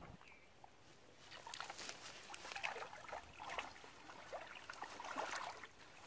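Shallow water sloshing and splashing in irregular bursts, mixed with plants rustling, as a triangular hand net is worked through a weedy canal edge. The bursts begin about a second in.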